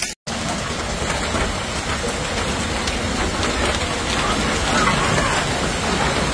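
Heavy storm downpour pounding down, a dense steady hiss of countless small drops striking the ground and nearby surfaces, starting just after a brief dropout at the very beginning.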